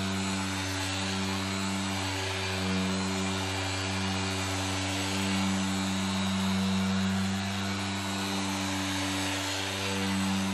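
Corded electric orbital polisher with a foam pad running against a car's painted wing while polishing the resprayed panel: a steady motor hum with a whirring hiss, its pitch sagging briefly a few times.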